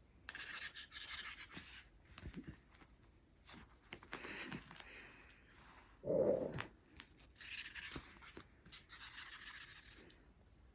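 Cat playing with a wand toy: several bursts of rustling and scratching, each about a second long, as the toy is batted and jostled.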